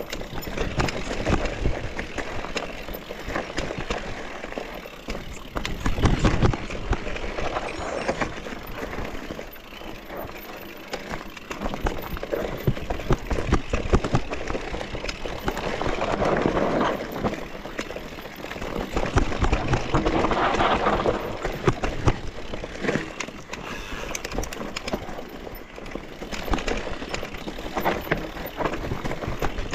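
Mountain bike riding down a dirt trail: a continuous rush of tyre and wind noise, with many small knocks and rattles from the bike bouncing over the ground.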